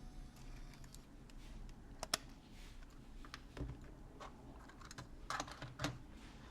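Scattered light plastic clicks and taps from a Digital8 tape cassette being taken out of a camcorder and handled, with a small cluster of clicks near the end.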